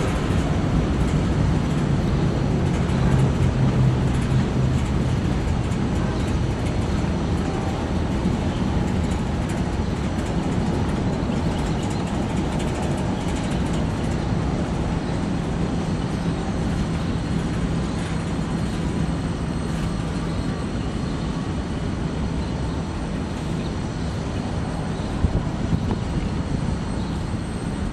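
Freight train passing: boxcars rolling over the rails with a steady rumble and rattle under a constant low drone. One sharp knock near the end.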